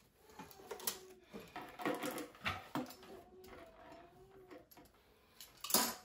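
Tape being peeled off the air conditioner unit: irregular crackling and rasping with small clicks and rubbing of rubber gloves, and a sharper rip near the end.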